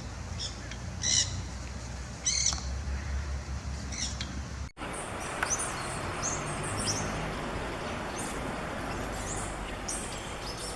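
A bird gives about four short, harsh calls a second or so apart; then, after a sudden cut, many small birds chirp rapidly over a steady hiss of background noise.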